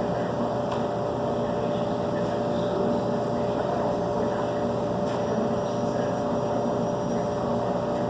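Steady machine hum with a constant mid-pitched tone running at an even level.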